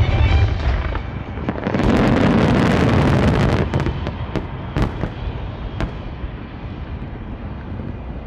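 Fireworks finale: a dense barrage of shell bursts and crackling for about two seconds, followed by two single sharp bangs about a second apart, then the rumble dying away.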